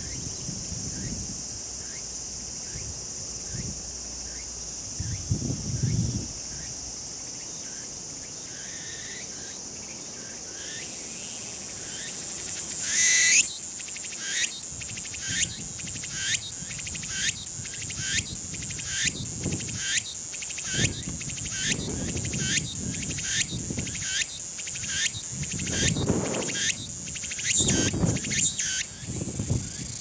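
Meimuna opalifera cicada (tsukutsuku-boshi) singing. A steady high buzz swells about 13 seconds in, then breaks into a fast run of repeated pulsing phrases, nearly two a second, through to the end.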